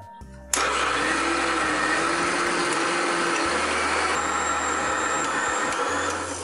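Electric kitchen mixer grinder (mixie) running steadily, grinding soaked urad dal and rice with water into dosa batter. It switches on abruptly about half a second in and cuts off just before the end.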